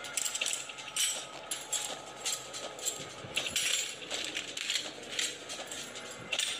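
An irregular run of sharp clicks and knocks, two or three a second.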